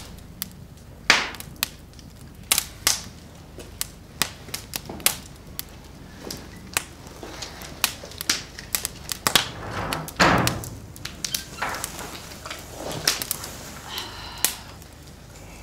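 Open wood fire crackling, with irregular sharp pops.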